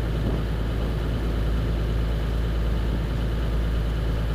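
Rigid inflatable boat under way: its engine runs steadily, mixed with the rumble of wind on the microphone and water rushing along the hull.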